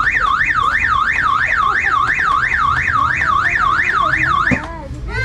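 An electronic siren tone warbling quickly up and down in pitch, about three sweeps a second, cutting off suddenly about four and a half seconds in.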